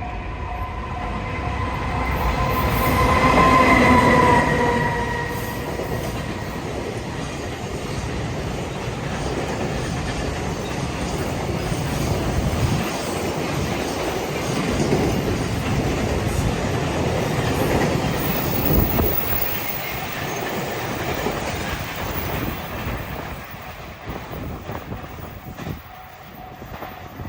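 Train passing over a level crossing, a long loud rumble with wheels clattering over the rail joints, fading near the end. The crossing's warning bell rings at the start, swelling to its loudest about four seconds in, and is heard again faintly at the end.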